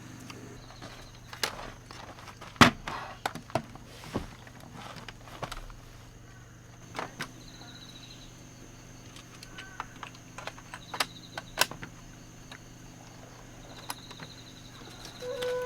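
Scattered sharp knocks and clicks, the loudest about two and a half seconds in, over a steady low hum, with a few short, faint high chirps.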